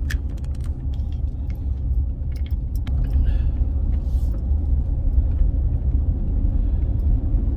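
Steady low rumble of a car driving, heard from inside the cabin, with a few light clicks and rattles in the first few seconds.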